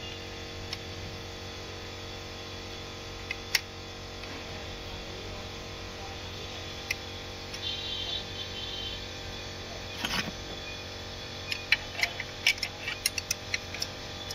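Scattered sharp clicks and taps of hand tools at work on a car engine's timing, a few at first and then a quick run of them near the end, over a steady hum.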